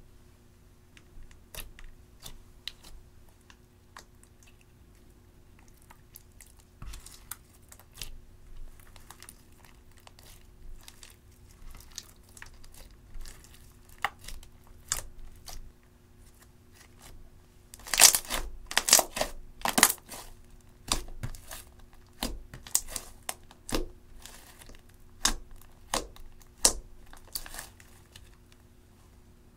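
Clear slime mixed with crushed eyeshadow powder being squeezed, kneaded and stretched by hand, giving sticky crackling and popping. The crackles are sparse at first, come thickest and loudest about two-thirds of the way through, then thin out again.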